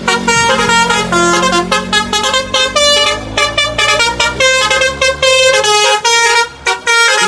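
Telolet bus horn playing a quick multi-tone melody: a run of short, loud horn notes that change pitch several times a second.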